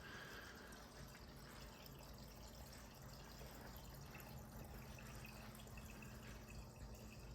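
Faint, steady trickle and gurgle of water draining through an aquarium's BeanAnimal external overflow into the sump, with the return pump's low hum. The overflow is running quietly and steadily, with the gyre pumps switched off.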